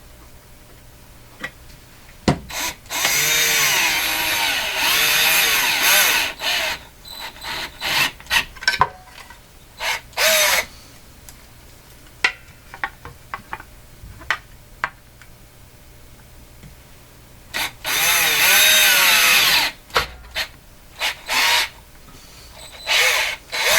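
Electric drill boring holes in a speaker's battery compartment box for terminal posts. There are two long runs of motor whine, the pitch sagging and recovering as the bit cuts, and short trigger bursts in between.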